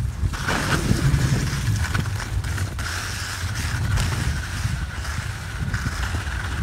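Skis scraping and sliding over packed snow, with steady wind rumble on the phone's microphone.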